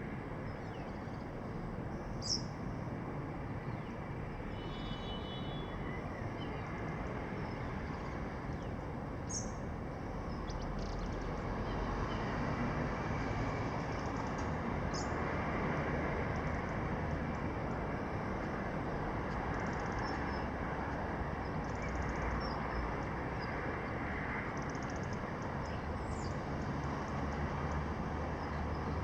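Steady hum of distant city traffic, growing a little louder about a third of the way through, with a few short high bird chirps scattered over it.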